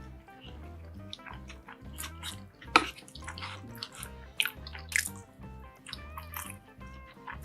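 Background music with a steady, repeating bass beat, over scattered sharp clicks and wet, watery kitchen or food sounds; the loudest click comes a little under three seconds in.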